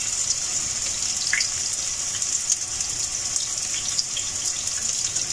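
Chapli kebab patties frying in hot oil in a nonstick pan: a steady high sizzle with small scattered crackles.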